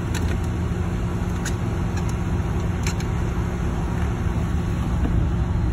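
Steady low background rumble and hum, like running machinery, with a few faint clicks and taps from handling close to the phone.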